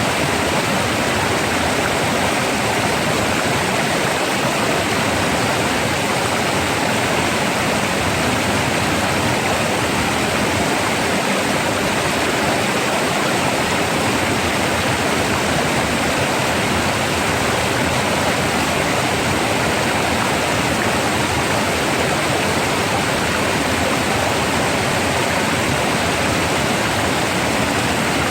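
Rough, rushing water flowing steadily, a continuous dense splashing hiss with no change in level.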